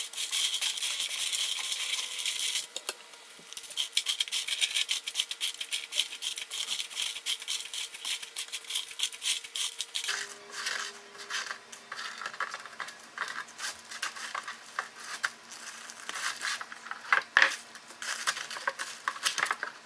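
Plastic-backed jigsaw puzzle pieces being pulled apart and handled: a dense, irregular run of small clicks and rustling.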